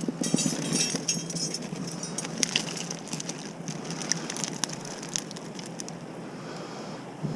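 Underwater noise with scattered crackling clicks, thickest in the first few seconds, picked up by a camera beneath the sea surface.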